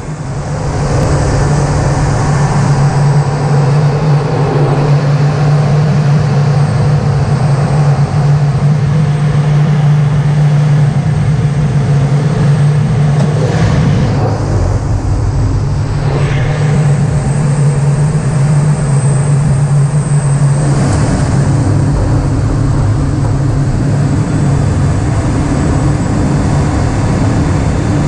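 Cockpit noise of a Eurofighter Typhoon in aerobatic display flight: a loud, steady rush of airflow and twin EJ200 turbofan engine noise over a low hum. The hum shifts slightly lower about two-thirds of the way through.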